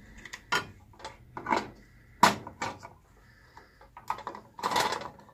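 Handheld safety can opener, the side-cutting kind that leaves no sharp edge, being clamped onto a tin can and cranked: irregular metal clicks and clacks, the sharpest a little past two seconds in and a quick run of them near the end.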